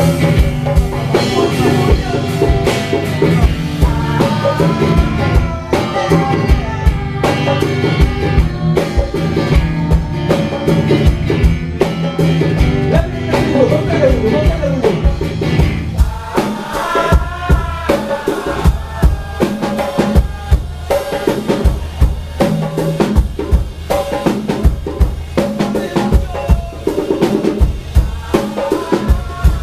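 Konpa band playing live, a drum kit keeping a steady dance beat with rimshots and bass drum under pitched instruments. About halfway the low sustained part drops away and the drums come to the front.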